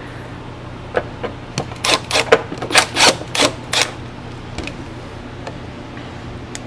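Irregular sharp clicks and light clatter of small parts being handled, about a dozen in two to three seconds, as the clamps are worked off a backpack blower's throttle cable and wiring harness.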